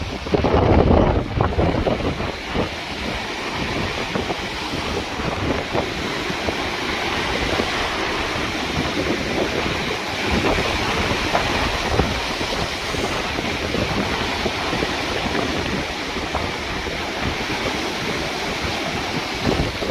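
Ocean waves washing onto the shore in a steady surf, with wind buffeting the microphone; loudest in the first couple of seconds.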